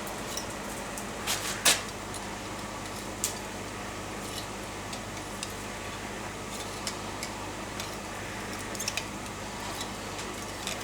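Steady low workshop hum with scattered light clicks and clinks of handled tools or metal, the loudest a short clatter about a second and a half in.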